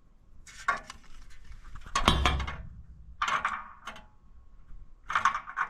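Metal plumbing parts clinking and rattling as they are handled, in four short bursts, the loudest about two seconds in with a dull knock.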